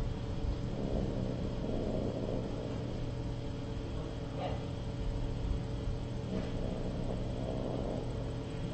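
Steady low electrical hum and room rumble, with two stretches of faint rustling, about a second in and again near the end.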